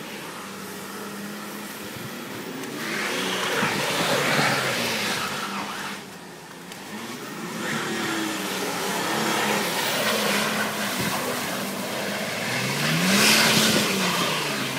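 Mercedes-Benz S-Class engine revving up and down as the car spins donuts in snow, with the spinning tyres hissing through the slush in surges. The engine note swells and falls several times and is loudest about thirteen seconds in, where its pitch climbs and drops again.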